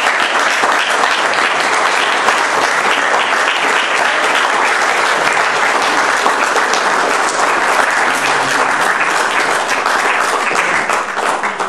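Audience applauding, a dense steady clapping that fades away near the end.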